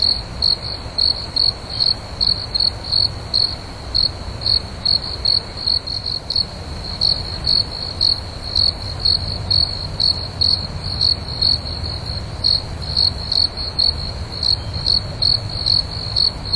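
Crickets chirping in a steady, even rhythm of about two to three high chirps a second, as a night-time ambience, over a low steady rumble.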